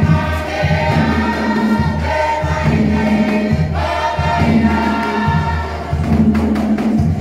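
Music: a group of voices singing a Cook Islands song over a strong bass accompaniment.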